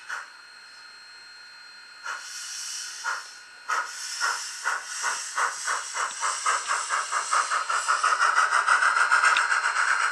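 Sound decoder of a Rivarossi H0 Union Pacific 4014 Big Boy model steam locomotive playing its driving sound as the model pulls away: a few slow, separate steam chuffs, then chuffs quickening to several a second and growing louder over a steady hiss.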